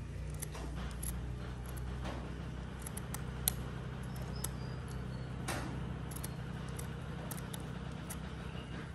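Scissors snipping through a thick stack of fabric squares: a few separate crisp snips, the sharpest about three and a half seconds in, over a steady low hum.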